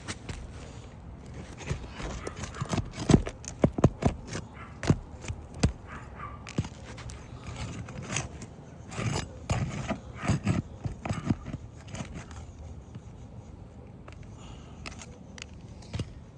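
A metal roof snake working under asphalt shingles: scraping with clusters of sharp clicks and knocks, busiest a few seconds in and again around ten seconds in, quieter near the end.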